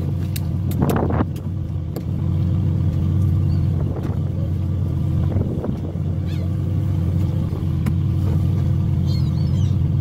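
Fishing boat's engine running with a steady low drone, with a few short knocks and clatters of fishing tackle being handled on deck.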